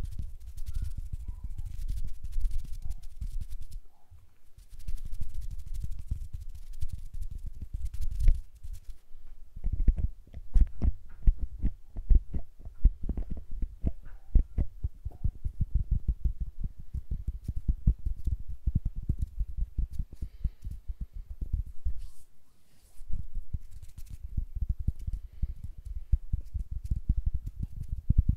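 ASMR hand sounds right at a two-capsule stereo microphone: fingers flutter and rub around the capsules, and air from the hands buffets them as soft, irregular low thuds with patches of rustle. From about ten seconds in, fingertips tap and brush the capsules in a fast, dense run of small knocks.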